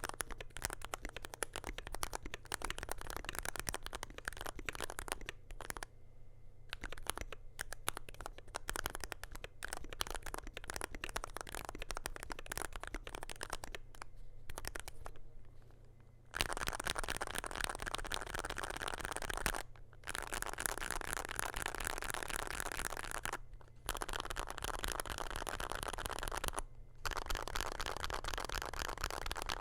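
Typing on a DrunkDeer A75 PRO keyboard: lubed RAESHA magnetic (Hall-effect) switches under PBT Cherry-profile keycaps, in an aluminum case with a stainless-steel plate and foam. The keys clatter steadily with frequent short pauses, then from about halfway come in a faster, denser run broken by three brief pauses.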